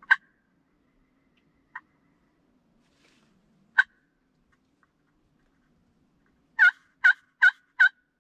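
Friction turkey call worked with a wooden striker, giving sharp, single hen-turkey notes spaced a couple of seconds apart, then a quick run of four yelps near the end.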